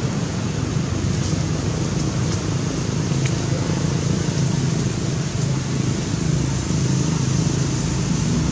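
Steady low rumble with an even hiss above it: outdoor background noise, with no distinct event other than a faint tick about three seconds in.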